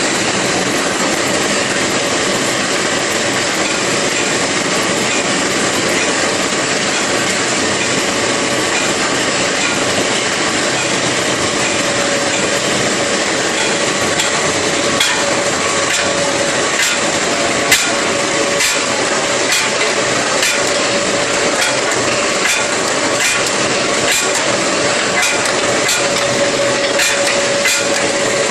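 Anyang D70 skew rolling mill running, a loud steady industrial din as it rolls a red-hot steel bar into balls. From about halfway on, frequent sharp metallic knocks come through, about one to two a second, as the rolled balls come off the rolls.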